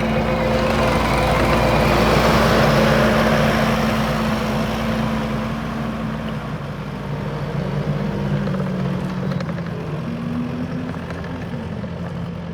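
Kubota SVL75-2 compact track loader's four-cylinder diesel engine running, growing louder over the first few seconds and then easing down.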